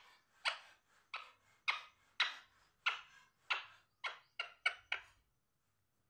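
Green parakeet giving a rapid series of short, sharp squawks, each falling in pitch. They come about one every half-second, quicken into four fast ones near the end, then stop.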